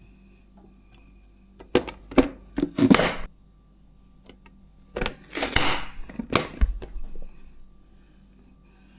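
Vegetables being chopped for a salad: sharp thunks and crunching in two short clusters, the first about two seconds in and the second about five seconds in.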